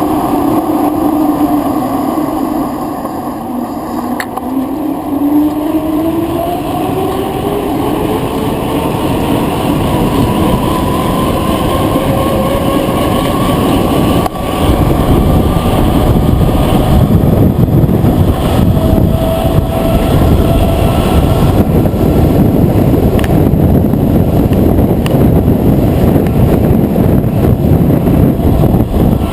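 Wind rushing over the microphone of a bicycle descending fast, with tyre noise. A faint whistle dips in pitch and then slowly climbs, and the rush gets louder about halfway through.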